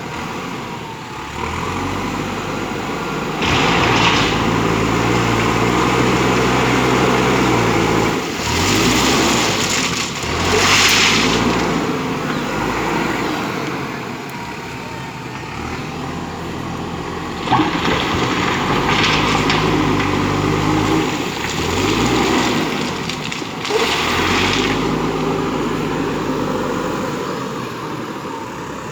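JCB 3DX backhoe loader's diesel engine working, its pitch climbing and falling again and again as it is revved under load, with several loud noisy surges on top.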